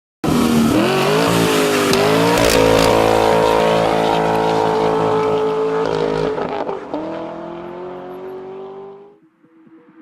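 A car engine revving hard: it climbs in pitch twice, holds a high steady rev, then drops off about six and a half seconds in and fades away near the end.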